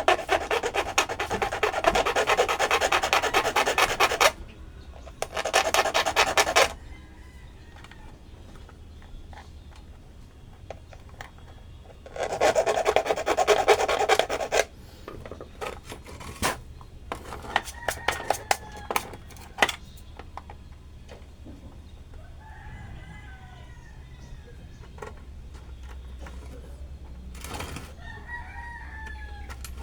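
Harsh, rapid rasping and rubbing in three loud bursts, followed by scattered clicks and knocks. Faint chicken calls can be heard in the background later on.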